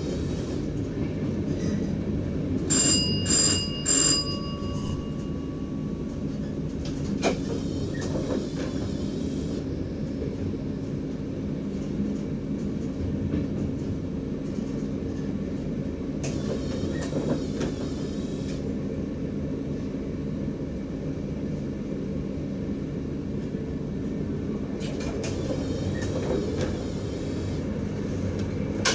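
DDZ double-deck electric train running on the track, heard from the driver's cab: a steady rumble with scattered clicks. About three seconds in, a bell-like chime rings three times in quick succession.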